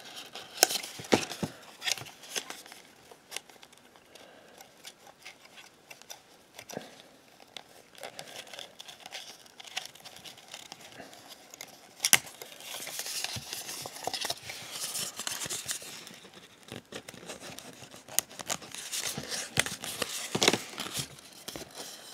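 Cardboard hang tag being handled and pried open by hand: scattered paper crinkles, scrapes and sharp clicks, with a loud click about twelve seconds in followed by a few seconds of rustling, and another rustle near the end.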